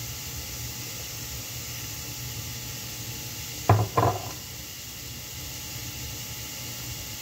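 Two sharp knocks in quick succession about halfway through, over a steady hiss.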